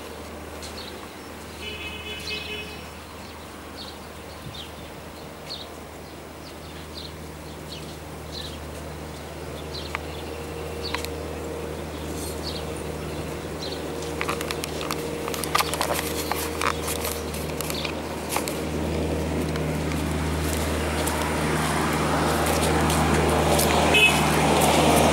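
Outdoor ambience: a steady low hum with short high bird chirps about once a second. Clicks and rustling come in after the halfway point, and a broad noise builds toward the end.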